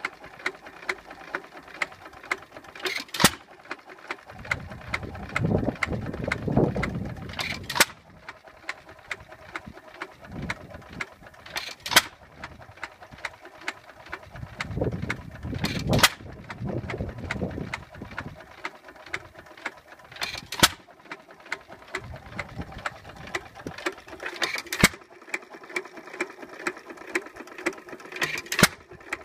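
1919 Amanco Hired Man 2-1/4 HP single-cylinder hit-and-miss stationary engine running unloaded, firing about once every four seconds and coasting between firings with a light, rapid mechanical clicking. There are two stretches of low rumble.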